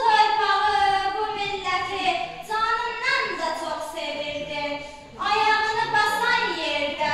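A young girl singing, holding long notes in phrases that pause briefly about two and a half and five seconds in.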